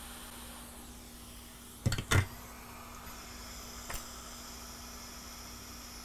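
Steady hiss of microsoldering bench equipment with a faint low hum, broken by a quick cluster of sharp clicks about two seconds in and a single click near four seconds. A thin high whine joins the hiss a little after three seconds.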